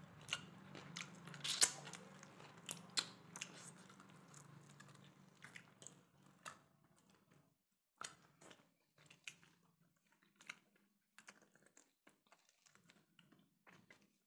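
A person chewing and biting on bone-in chicken curry eaten by hand, with sharp crunching clicks, the loudest about a second and a half in. A low steady hum underneath stops about halfway through, after which the chewing clicks come sparser.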